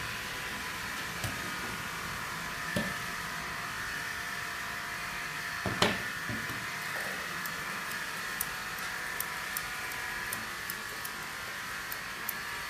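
Grooming shears snipping through an Airedale Terrier's leg coat, a run of quick small snips in the second half, over a steady machine hum. A sharp click about six seconds in is the loudest sound.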